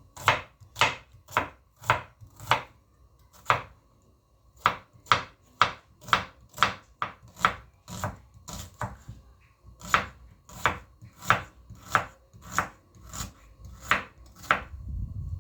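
Kitchen knife chopping red onions on a cutting board: sharp, even chops at about two a second, with a short pause about four seconds in.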